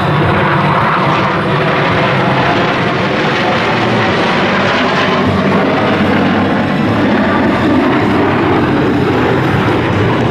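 Jet roar of Blue Angels F/A-18 Hornets flying over, a loud steady rushing noise that swells through the middle.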